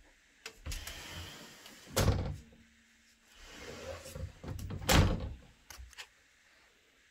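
Closet doors sliding along their track and closing with a knock, twice, about three seconds apart.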